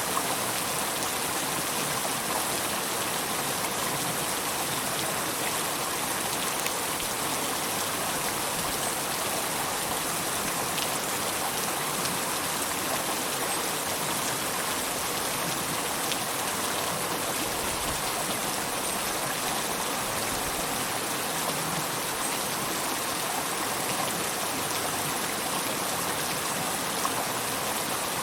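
River water flowing, a steady, even rush with a bright hiss.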